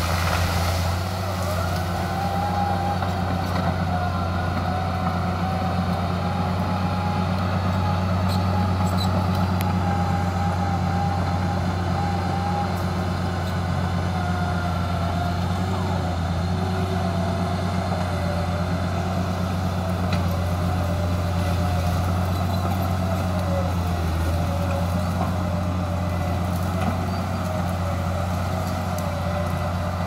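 Small crawler bulldozer's diesel engine running steadily under load as it pushes over trees, with a high whine above the engine drone that wavers up and down in pitch.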